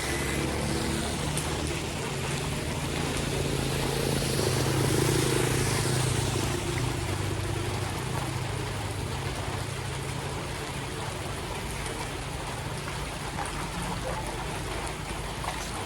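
Steady rush of rain and floodwater running on a street, with a motor vehicle's engine passing, loudest about five seconds in, then fading.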